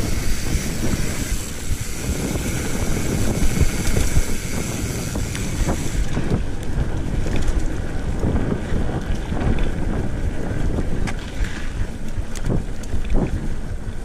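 Mountain bike rolling fast over a dirt singletrack, heard as wind buffeting the microphone over the rumble of the tyres on the trail. Scattered clicks and knocks come from the bike rattling over bumps, more of them in the second half.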